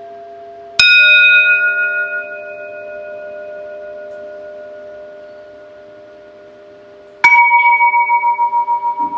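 Two singing bowls struck in turn, once about a second in and again near the end, each ringing on long. The second is lower-pitched and rings with a pulsing wobble, over the fading tones of bowls struck earlier.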